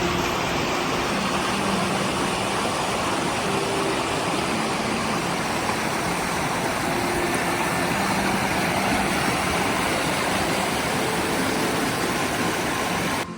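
Waterfall on a rapid mountain stream: a steady rush of falling water that cuts off abruptly near the end.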